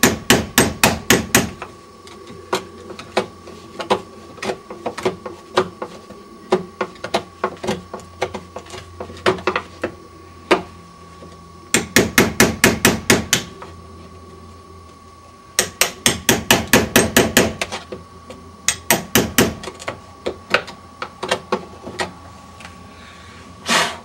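A hammer tapping a wood chisel into a wooden door jamb, cutting the deadbolt's strike hole lower. There are quick runs of light strikes, about five a second, with scattered single taps between.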